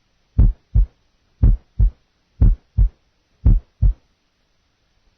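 Normal human heart sounds heard at the left lateral sternal border: four heartbeats about a second apart, each a lub-dub pair of a first heart sound (S1) and a single, unsplit second heart sound (S2). The beats stop about four seconds in.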